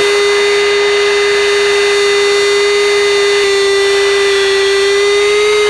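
Steady, loud whine in the Mirage III's cockpit audio: one tone with overtones, its pitch dipping slightly about three and a half seconds in and rising briefly near the end.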